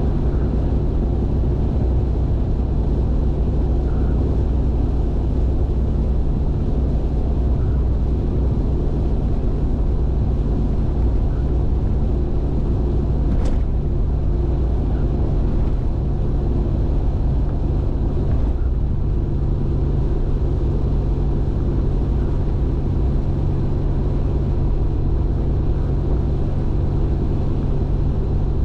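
Steady low drone of a car cruising on an expressway, heard from inside: tyre and road noise with a constant engine hum.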